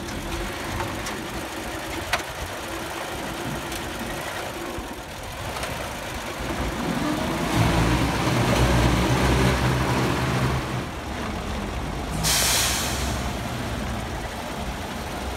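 A truck engine running, louder for a few seconds around the middle, with a short hiss of released air, like an air brake, near the end.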